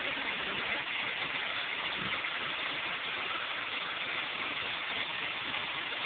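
Water rushing steadily through a commercial toilet's chrome flushometer valve into the bowl. The flush valve is staying open and runs on for about two minutes instead of shutting off.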